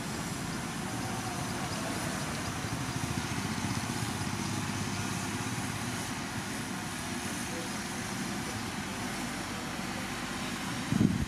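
Heavy diesel earthmoving machinery running steadily with a low, pulsing engine sound. A louder low rumble cuts in near the end.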